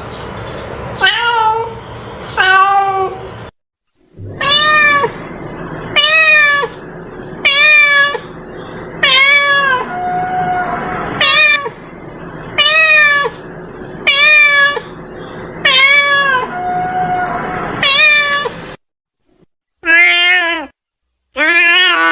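A domestic cat meowing again and again, one meow about every second and a half, each call rising then falling in pitch. The run breaks off twice with sudden silences where separate recordings are spliced together.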